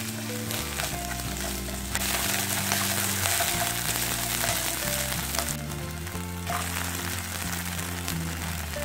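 Chopped green onion sizzling in oil in a nonstick frying pan while being stirred with wooden chopsticks; the sizzle grows louder about two seconds in. Light background music plays underneath.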